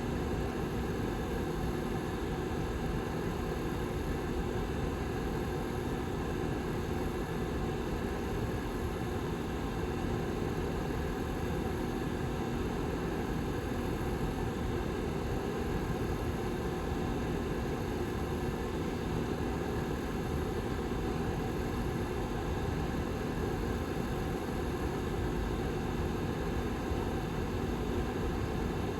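Back fan of a Lasko 755320 ceramic tower heater running steadily: an even whoosh of moving air with a faint low hum underneath.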